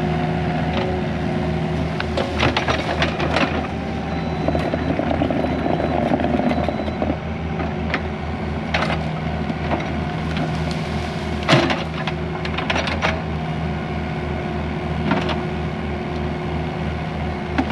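Skid steer engine running steadily under load as a dead tree's roots are worked loose, with wood cracking and snapping several times over it; the loudest is a sharp crack about two-thirds of the way through.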